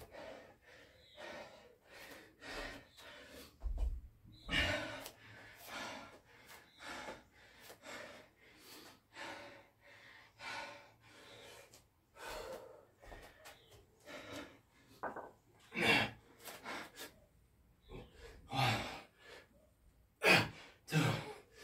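A man panting hard, quick gasping breaths one after another, out of breath from burpees and kettlebell thrusters. A low thump about four seconds in.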